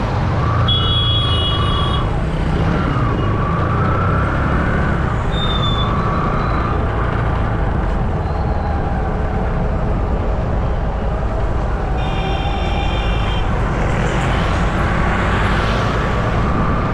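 Road traffic heard from a moving vehicle: a steady engine and road rumble with a wavering whine over it. A horn sounds twice, briefly near the start and again for about a second and a half about two-thirds of the way through.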